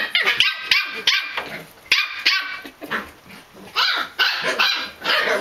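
Pembroke Welsh Corgi puppies barking and yipping in quick, high-pitched bursts while play-fighting.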